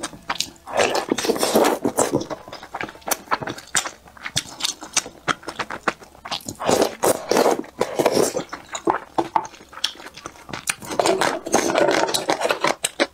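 Close-miked eating: wet chewing and lip smacks on boiled pickled-cabbage dumplings, with three stretches of denser chewing, about a second in, around the middle and near the end.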